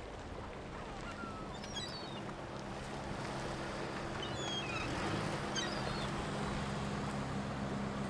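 A boat engine running with a low, steady hum that drops away near the end, with short bird chirps a few times over it.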